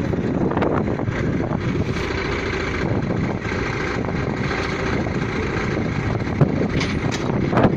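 Pneumatic drilling rig running: a steady, dense mechanical noise without pauses.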